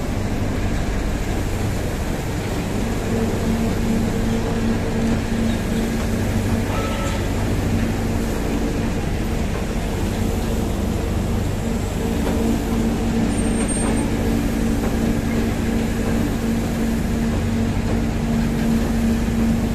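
Steady drone of heavy hydraulic unloading machinery tipping a sugarcane-laden truck, with a low, steady hum that grows stronger about three seconds in.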